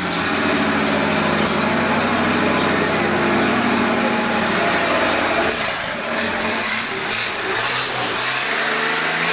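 Willys Rural's Chevrolet 250-S straight-six running with a loud rumble, steady for about five and a half seconds, then running more unevenly, with the revs falling near the end.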